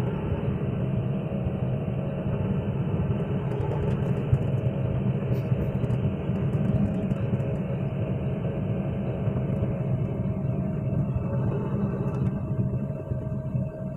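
Excavator's diesel engine running steadily, heard from inside the cab as the machine travels. The sound eases off a little about thirteen seconds in.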